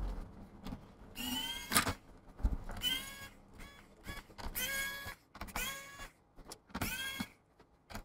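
Cordless electric precision screwdriver whirring in several short runs as it backs out laptop bottom-panel screws. Each whir rises in pitch as the motor spins up, then holds briefly before stopping.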